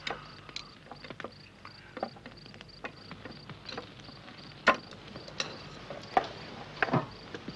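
Scattered light clicks and knocks of chopsticks and tableware during a meal, the sharpest about halfway through and a couple near the end, over a faint, evenly pulsing chirp of crickets.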